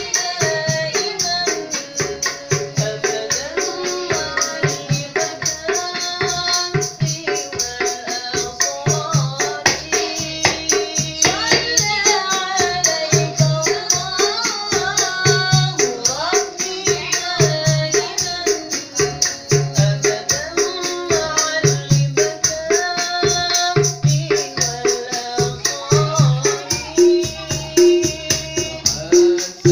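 A man singing a flowing melody over a busker's small hand-drum set. The drums keep a steady beat of low thumps mixed with bright jingling, like a tambourine.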